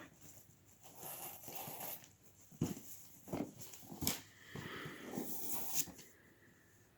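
Paper rustling and crinkling as a wrapped gift is opened, with a few light knocks of handling.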